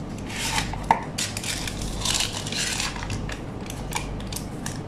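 Kitchen utensils and dishes clinking and scraping while ingredients are handled, with a few sharp clicks, the clearest about a second in.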